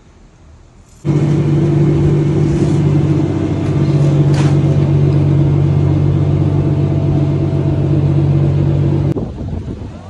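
Chairlift station machinery humming: a loud, steady mechanical drone at one unchanging pitch that starts suddenly about a second in and cuts off abruptly near the end.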